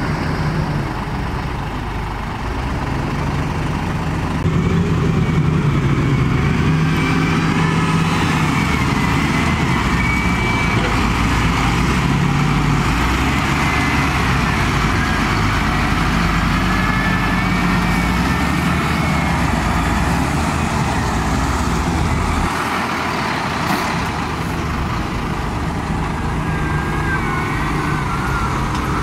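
Heavy diesel engines of wheel loaders and a stuck dump truck running, their engine speed rising and falling, with a wavering whine above the engine note.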